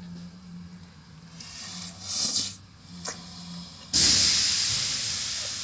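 Automatic car wash machinery running: a low steady hum with a short hiss about two seconds in, then a sudden loud hiss of spray or air about four seconds in that slowly dies away.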